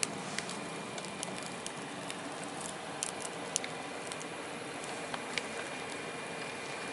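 Small campfire of twigs and dry grass crackling: scattered sharp pops at irregular intervals over a steady hiss.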